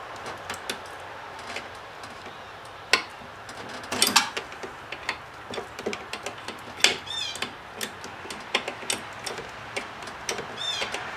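Steel wrench clinking and knocking against a brake line flare nut at the master cylinder as the line is loosened, in irregular sharp clicks, with a few short high squeaks.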